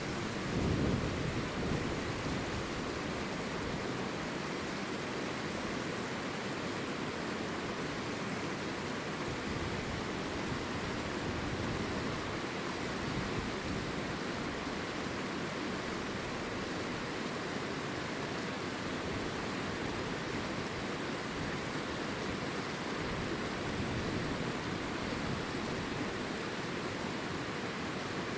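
Wind blowing across the microphone: a steady hiss with low rumbling gusts, the strongest about a second in.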